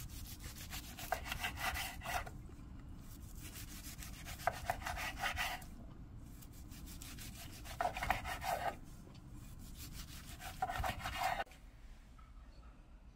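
A knife sawing through gamtae-wrapped gimbap rolls on a cutting board: four slicing strokes about three seconds apart, each lasting about a second.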